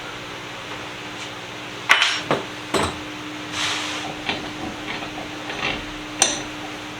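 Sharp metal knocks and clinks as the vise's parts and tools are worked during disassembly: three hits close together about two seconds in, softer scraping knocks after them, and one more sharp knock near the end. A steady hum runs underneath.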